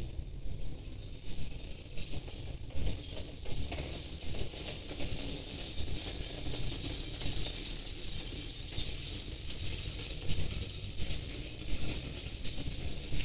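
Outdoor ambience: a steady hiss over a low rumble, with many small irregular clicks and taps throughout.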